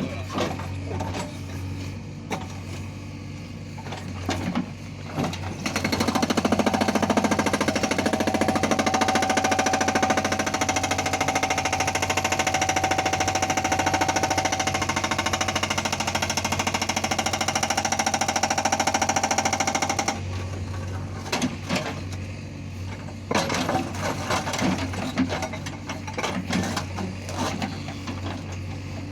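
Hydraulic rock breaker on a JCB excavator hammering stone. From about six seconds in until about twenty seconds it runs as a continuous rapid hammering. Before and after, there are scattered knocks over the machine's steady engine hum.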